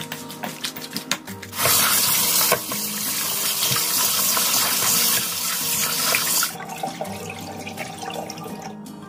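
Kitchen tap running hard onto raw chicken pieces in a stainless steel bowl, starting about a second and a half in and stopping about two-thirds of the way through; afterwards a quieter splash as the rinse water is tipped from the bowl into the sink.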